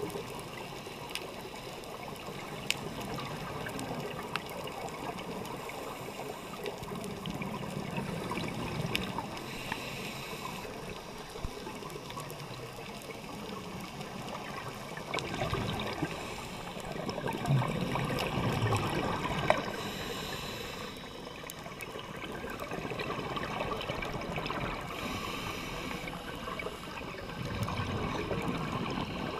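Underwater sound on a scuba dive: a diver's regulator exhaust bubbles gurgling in swells every several seconds over a steady watery hiss, with scattered faint clicks.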